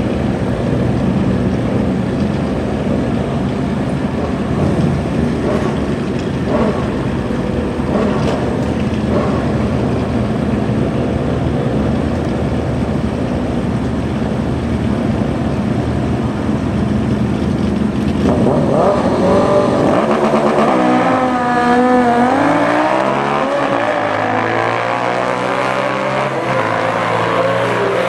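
Two drag-racing motorcycles, a Suzuki Hayabusa inline-four and a Harley-Davidson V-twin, idle at the start line with a few short throttle blips. About eighteen seconds in they launch and accelerate hard away, engine pitch climbing and dropping with each gear shift.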